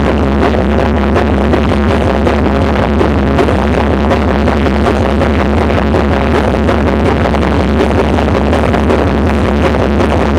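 Loud electronic dance music with a heavy, steady bass, played through a high-power sound system.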